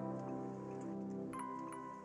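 Background instrumental music with held chords, the notes changing about a second and a half in.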